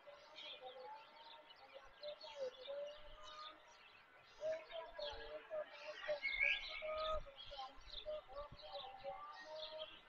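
Several birds chirping and calling at once, many short overlapping notes, with one sharp rising chirp standing out about six seconds in.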